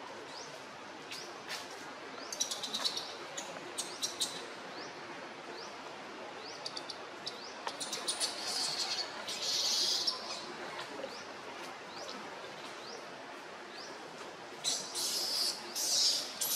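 Birds chirping: a short rising high note repeated about once a second, with bursts of denser, louder high chirping, loudest about ten seconds in and near the end.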